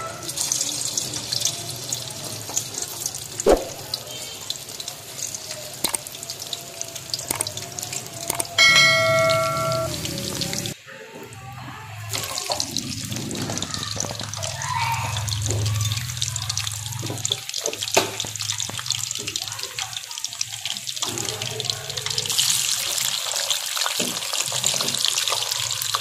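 Hot cooking oil sizzling and crackling as meat and chicken pieces fry in a pot. A brief loud tone, like a single electronic note, sounds about nine seconds in.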